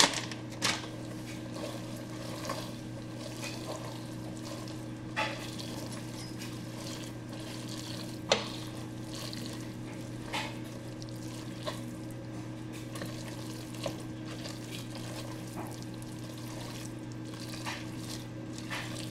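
A spatula stirring thick, cheesy spaghetti in a pot, with a few scattered scrapes and taps against the pot, the sharpest about eight seconds in. A steady low hum runs underneath.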